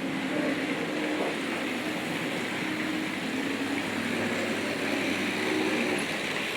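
H0 model trains running on the layout: a steady hum of small electric locomotive motors with the rolling rattle of wheels on the track, the motor tone shifting in pitch now and then.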